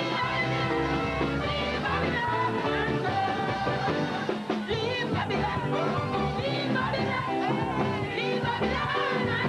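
Live gospel song: a singer's voice over a full band backing, at a steady, upbeat pace with no break.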